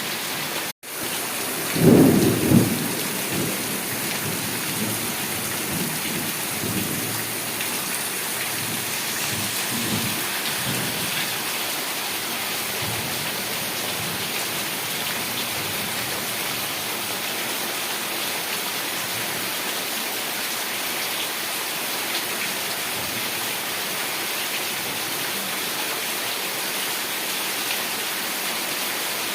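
Heavy rain falling steadily, with a loud rumble of thunder about two seconds in that rolls on and fades over the next several seconds. A split-second gap in the sound comes just before the thunder.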